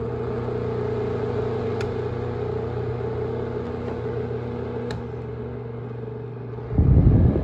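Honeywell desk fan running steadily: a low motor hum under a rush of air, now spinning properly with the hair wrapped around its motor shaft cleared away. Near the end a loud low rumble lasts about half a second.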